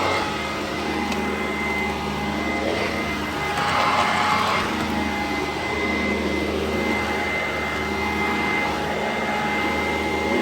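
Sanitaire SC899 upright vacuum cleaner running steadily with a constant high whine, swelling briefly about four seconds in.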